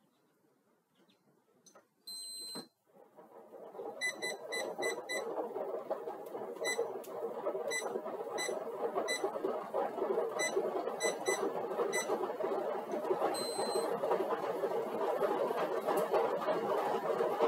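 Upright exercise bike: a single electronic beep about two seconds in, then a steady whir of the pedals and flywheel that builds up as pedaling begins at the 100 W warm-up load. Quick clusters of short beeps from the bike's console keys sound over the whir, with one longer beep near the end.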